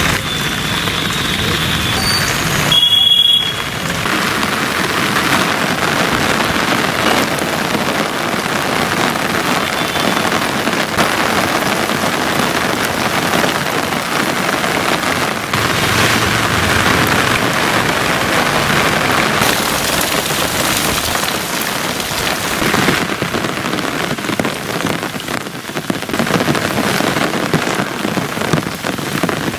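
Heavy rain falling steadily on waterlogged streets, a continuous hiss. A short high-pitched tone sounds about three seconds in.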